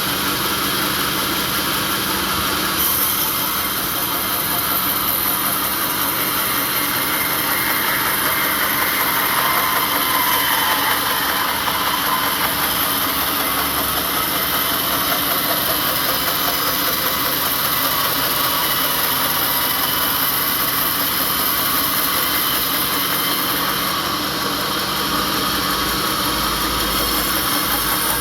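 Sawmill machinery running steadily: a constant engine-like hum with a hiss.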